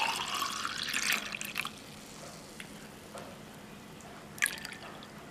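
Raw mango juice poured from a plastic bowl into a glass, splashing for about the first second and a half before the pour ends. A single sharp tick about four and a half seconds in.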